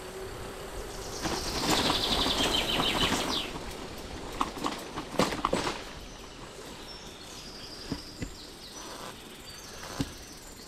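Birds chirping over steady outdoor noise, with a louder stretch of rattling noise and a fast high trill from about one to three and a half seconds in, and a few sharp clicks a little later.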